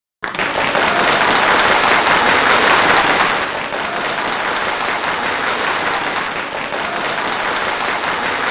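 A steady, even hiss that cuts in suddenly a quarter of a second in and holds without a break.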